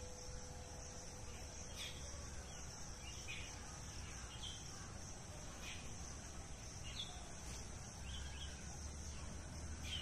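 Faint outdoor ambience: insects droning steadily at a high pitch, with short chirps of small birds about once every second or two and a low rumble underneath. No peacock call is heard.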